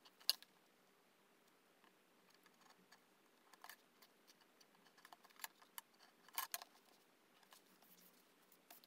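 Scattered faint clicks and taps of a steel ruler and pen handled on paper on a tabletop as lines are measured and drawn, the sharpest click just after the start and a few together about six and a half seconds in; between them near silence.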